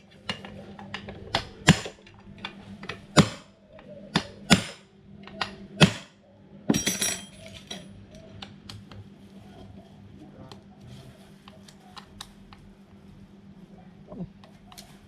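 Metal tools and engine parts clinking and knocking as a lawn mower engine is worked on by hand: a run of sharp knocks in the first half, then lighter ticks and taps.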